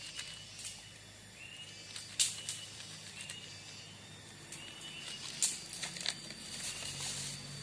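Forest background with a short, high, slightly rising call repeating over and over, about every second and a half, from a wild creature. A few sharp crinkles and clicks come from the paper seasoning packet being handled over the food, the loudest about two seconds in and again past the five-second mark.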